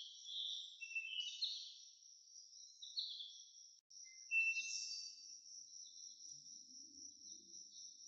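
Outdoor ambience: birds chirping over and over above a steady, high-pitched insect drone.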